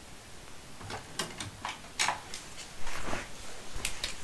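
Scattered light clicks, taps and rustles of small objects being handled and moved about, about half a dozen separate knocks.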